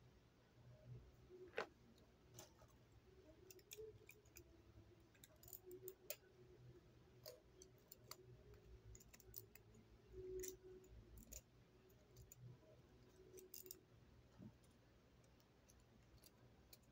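Near silence broken by faint, irregular small clicks and light rustles of hands handling things close to the microphone.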